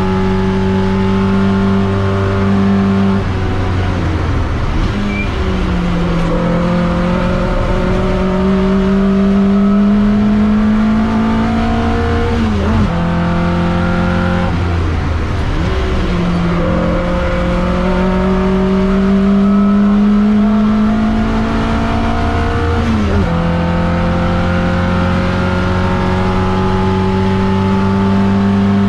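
TVR Vixen race car's engine under full racing load, heard from inside the cockpit. It holds a high-revving note that climbs slowly, and three times, about 3, 13 and 23 seconds in, the revs drop sharply and waver as the driver lifts and changes gear, then climb again.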